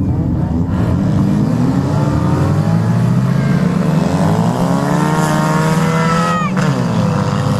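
Several banger racing cars' engines running together, their pitches climbing and dropping as the cars accelerate and lift off around the track, with one engine revving sharply upward just after six seconds.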